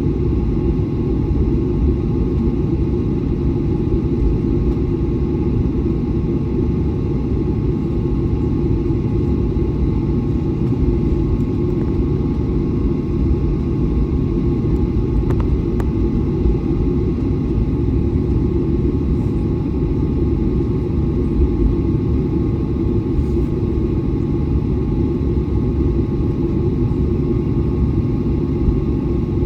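Jet airliner taxiing: a steady low rumble of idling engines and rolling, with a few faint steady tones above it.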